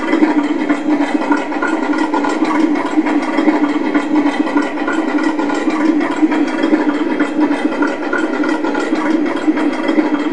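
RC tank's IBU2 Ultimate sound board playing a simulated tank engine idling steadily through the model's small speaker.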